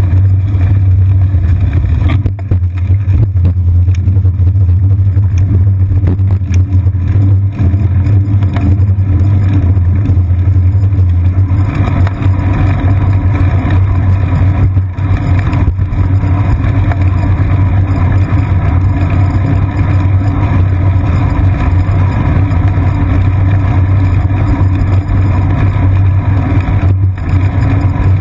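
Loud, steady low rumble of riding vibration and wind on a bicycle's seat-post-mounted GoPro Hero 2, rolling along a city street. It turns noisier and harsher about twelve seconds in.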